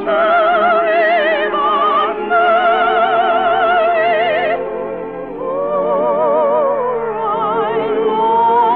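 Operatic singing: a high voice holding long notes with a wide vibrato, phrase after phrase, over orchestral accompaniment.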